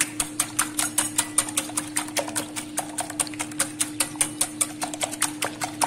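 Raw eggs being beaten by hand in a glass bowl, the utensil clicking against the glass in a fast, even rhythm of about seven strokes a second.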